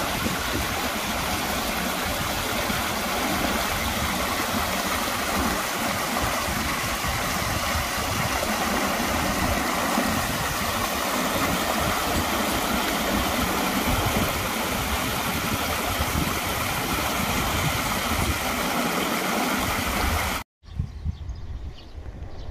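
Stream water rushing and splashing steadily over a low rock ledge. It cuts off suddenly near the end, and a much fainter background follows.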